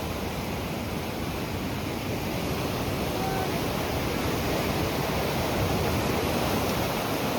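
Steady rushing outdoor noise of running water or wind, growing slightly louder.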